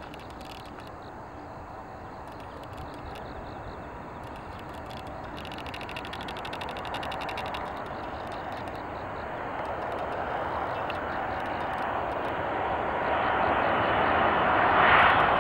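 Airbus A380's four Engine Alliance GP7200 turbofans on final approach: a steady jet rush that grows louder as the airliner comes nearer.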